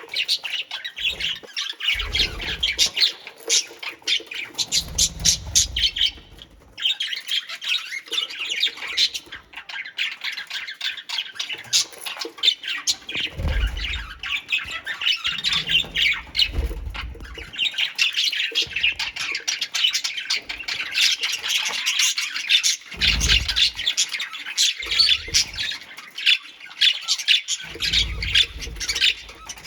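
A flock of pet birds chattering and squawking without a break, many rapid calls overlapping. Low rumbles come and go every few seconds.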